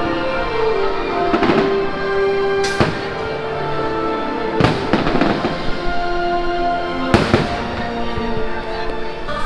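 Fireworks show: aerial shells bursting with several loud bangs a second or two apart over the show's music soundtrack playing through the park speakers.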